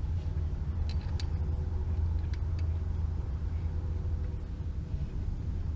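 Steady low rumble, with a few faint clicks about one and two and a half seconds in.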